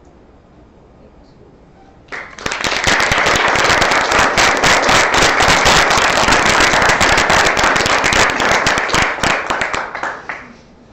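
Audience applauding: many hands clapping, starting suddenly about two seconds in and dying away shortly before the end.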